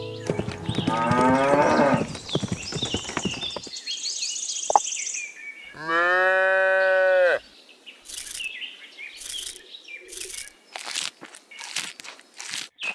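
Cows mooing twice: a long moo starting about half a second in, then a shorter, louder moo in the middle.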